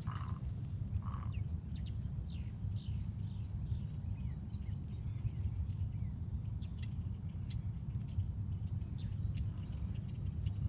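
Birds calling in a marsh, many short falling chirps scattered throughout, over a steady low rumble. A thin, high, steady tone sounds twice.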